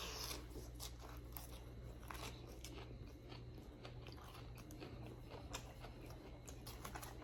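A person chewing a mouthful of salad, with faint, irregular crunches.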